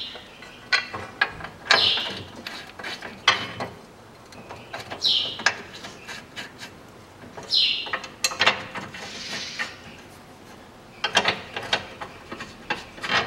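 Hand ratchet wrench clicking and metal clinks as bolts are fitted and run in to fasten a steel crossmember brace under a car, with a dense run of ratchet clicks near the end. Several short high chirps come through at intervals.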